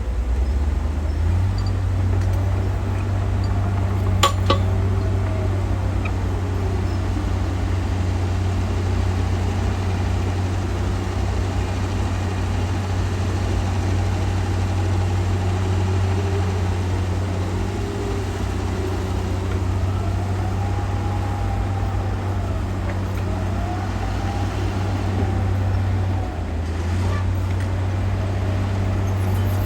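Diesel engine of a heavy earthmoving machine running steadily under work, with a low hum that eases briefly near the start and again near the end. Faint whines rise and fall over it, and there is one sharp knock about four seconds in.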